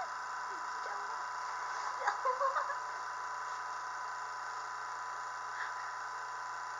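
Industrial vacuum pump running steadily with a constant hum and a steady tone, drawing down the vacuum on slime. A brief faint voice or giggle about two seconds in.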